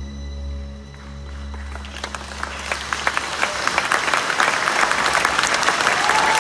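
The last sustained low chord of the band and orchestra fades out, and audience applause begins about two seconds in, building steadily into dense clapping.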